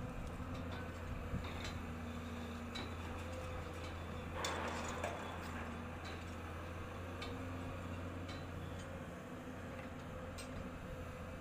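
A heavy diesel engine runs with a steady low drone, with scattered light ticks and clinks and a brief hiss about four seconds in. The drone fades near the end.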